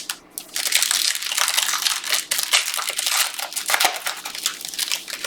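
Foil trading card pack wrapper crinkling steadily as it is opened and handled.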